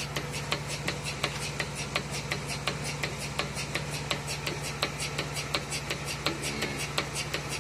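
Portable cow milking machine running while its teat cups are put on the udder: a steady low hum from the vacuum pump with rapid, even ticking, about five or six ticks a second.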